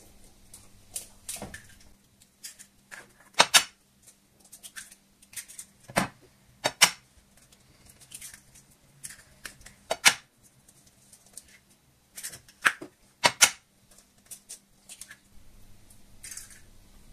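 Eggs being cracked one after another into a plastic bowl: sharp taps of shell on a hard edge every few seconds, several in close pairs, with small clicks and rustles of shell between.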